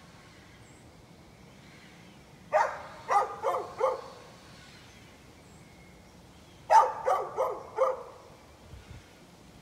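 A dog barking in two bursts of about four quick barks each, the first about two and a half seconds in and the second about seven seconds in.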